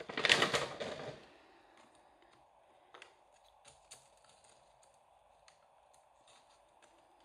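A loud rustle of clear plastic packaging for about the first second, then quiet with scattered faint clicks and taps as small Christmas baubles are handled and fitted into place.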